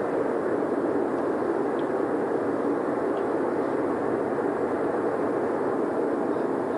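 A loud, steady droning hum from the sky with no visible source, spread out rather than coming from any one direction; its level and pitch stay even throughout.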